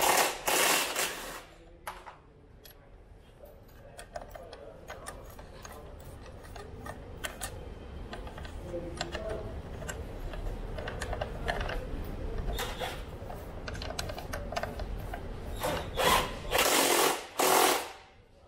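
Hand-tool and metal-part handling while fitting a hydraulic disc-brake caliper: scattered clicks and rattles, with louder scraping noises in the first second or so and again near the end.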